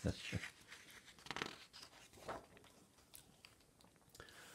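A page of a large picture book being turned by hand: faint paper rustling in several short swishes, with a few light taps.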